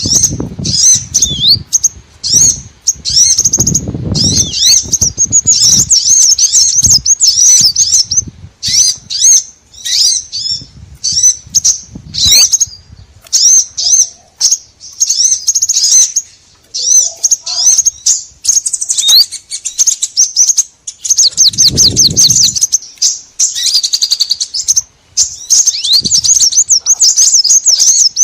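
Small songbirds chirping and twittering in quick, high, dense notes: a lure-call recording used to draw in small birds. A few low rumbling bumps come through underneath, the clearest about four seconds in and again past the twenty-second mark.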